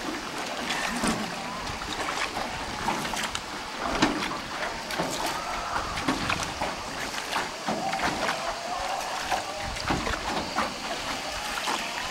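Rowboat being rowed on calm water: a steady splash and lap of water with the oar strokes, broken by occasional sharp knocks.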